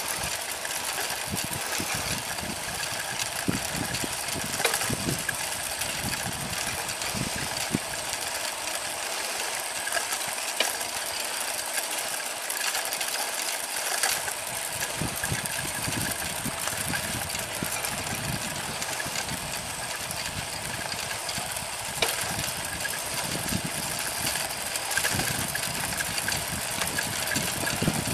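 Steady rolling noise of a bicycle ride on an asphalt path, with gusty low rumbles and a few sharp knocks.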